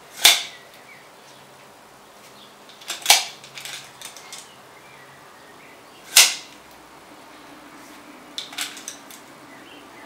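Three sharp clicks about three seconds apart, with lighter ticks between them, from a tape measure and the handlebar's brake lever and shifter being handled while being measured and moved.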